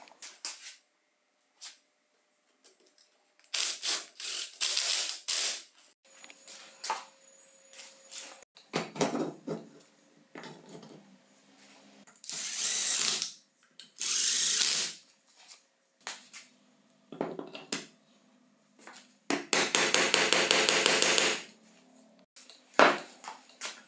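Screws being driven into a motor housing with a screwdriver: a series of short bursts of tool noise lasting about a second or two each, with light handling clicks between them. The longest burst comes near the end and has a fast, even clicking running through it.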